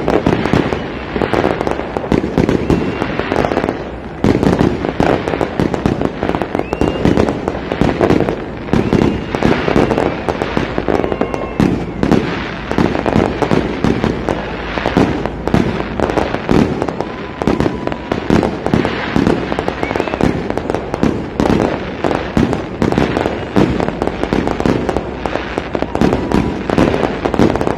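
Aerial fireworks going off in rapid, continuous succession: many bangs and crackles overlapping, with a few short whistles over them.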